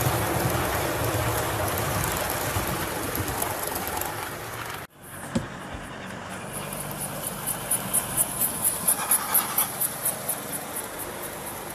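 O gauge model train running past on garden-railway track: a steady rumble of coach wheels on the rails that cuts out abruptly about five seconds in. Then the Gresley A3 steam locomotive passes close, its DCC sound decoder giving rhythmic chuffs, about three or four a second, that swell and fade.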